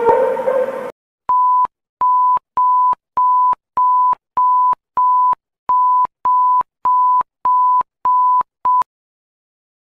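Electronic alarm beeping: a run of thirteen identical short, high-pitched single-tone beeps, about one every 0.6 seconds, the last one cut short. It is presented as France's alarm. The tail of a fuller-toned alarm sound ends about a second in, before the beeps start.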